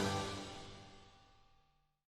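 Background music fading out, its last sustained notes dying away over about a second and a half into silence.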